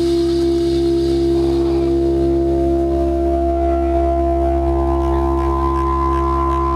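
Electronic dance music from a techno DJ set: a sustained synth chord held over a steady deep bass, with no clear drum hits, and a higher tone joining about two-thirds of the way in.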